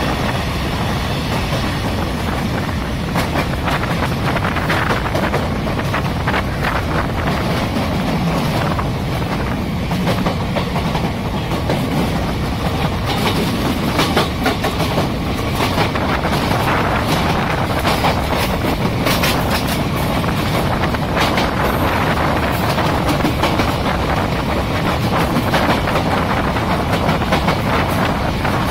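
Indian Railways passenger coach running at speed, heard from its open door: a steady rumble of wheels on rail with repeated clickety-clack clicks over the rail joints.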